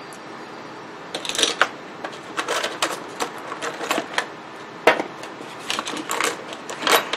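Irregular sharp clicks and rattles of a plastic blower-fan switch from a GMT-800 Tahoe being handled on a workbench, with a small screwdriver set down on the bench mat. The loudest click comes about five seconds in, and another just before the end.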